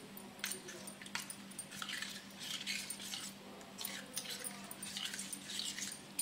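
Steel spoon stirring custard powder into cold milk in a small steel bowl, faintly scraping and clinking against the sides in quick, irregular strokes.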